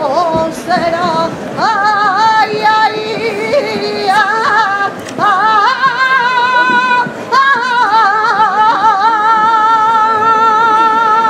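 A woman singing a saeta, the unaccompanied flamenco-style song sung to a Holy Week procession, in a strong voice with ornamented melismatic runs and a heavy vibrato. The last few seconds are one long wavering held note.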